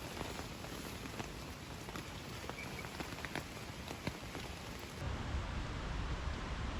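Rain falling steadily, with scattered individual drops striking close by. About five seconds in it changes abruptly to a louder low rumble of wind buffeting the microphone.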